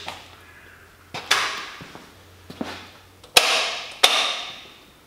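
Four or five sharp metallic clunks, each ringing briefly, the two loudest about half a second apart late on, as the vintage Kunming milling machine's switchgear is worked; a faint low hum comes and goes between them.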